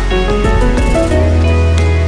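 Background music: held chords over a deep bass note that changes about a second in.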